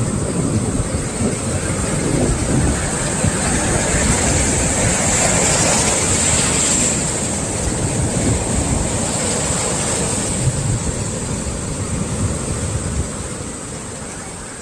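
Ocean swell waves breaking and rushing onto the shore, with wind rumbling on the microphone. The rush swells to a peak about five seconds in, then fades out near the end.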